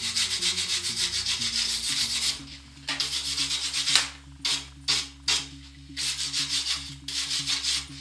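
Wire brush scrubbing a fresh flux-core weld on a steel tube in quick back-and-forth strokes, cleaning off slag to show the weld. It comes in several runs of rapid scrubbing, with a few single strokes about halfway through.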